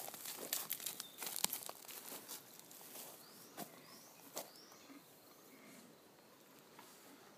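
Horse hooves crunching and scuffing on wood-chip arena footing at a walk, dense crackly crunches for the first two seconds or so, then fainter. A few short high rising chirps, like small birds, about three to four seconds in.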